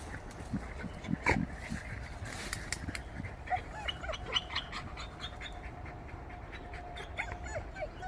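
American Pit Bull Terriers digging and tearing at the roots around an animal's burrow: panting and short dog noises over many scattered scrapes, knocks and snaps of dirt and roots.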